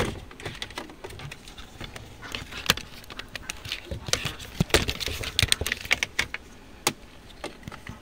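Irregular plastic clicks and rattles of a wiring harness connector being worked loose by hand from a car's light combination switch module. The clicks come thickest about halfway through.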